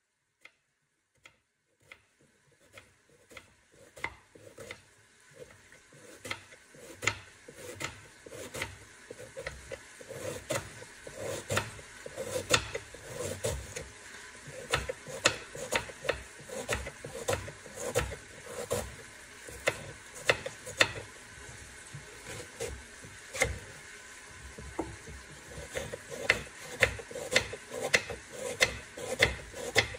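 Kitchen knife slicing a peeled onion on a wooden cutting board: a few scattered clicks at first, then a steady run of knocks of the blade on the board, about two or three a second, with the crunch of the onion between them.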